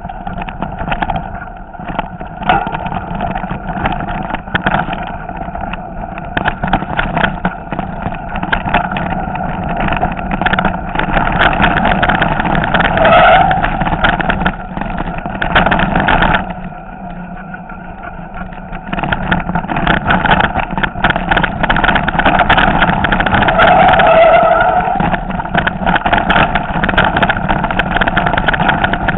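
Mountain bike clattering down a rocky trail: a constant, irregular rattle of knocks from the bike and its tyres striking loose stones, with a quieter stretch a little past halfway.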